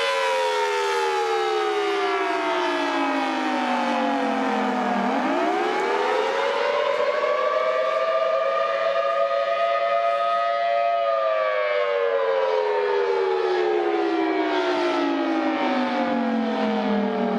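RE-1000 warning siren sounding a wail with several tones at once: its pitch slides slowly down to a low note about five seconds in, climbs back up and holds high for a few seconds, then slides down again near the end.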